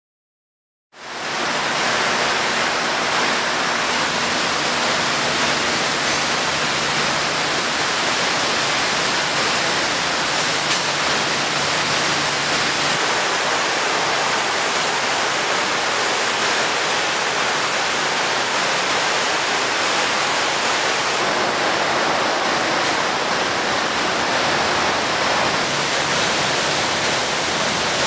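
Spray jets in a car factory's paint-shop line making a steady, loud rushing hiss as they spray bare steel car body shells. The hiss starts abruptly about a second in, with a faint low machine hum under it for roughly the first half.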